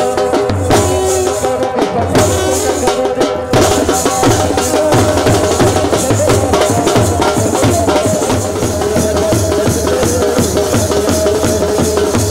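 Dance music with a steady, fast drum beat.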